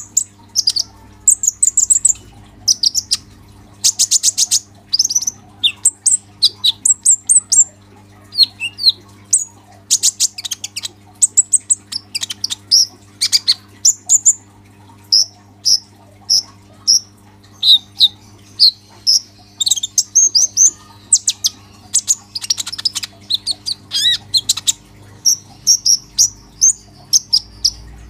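A sunbird (the 'kolibri ninja' of Indonesian songbird keepers) singing a fast, unbroken run of high, sharp chirps and twitters, broken several times by harsh rapid rattles. This is the full, lively song that keepers call 'gacor'.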